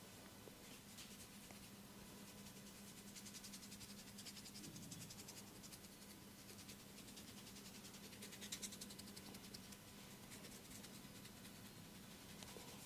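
Faint, quick rhythmic rubbing of hands over the head and neck during a massage, over a low steady hum.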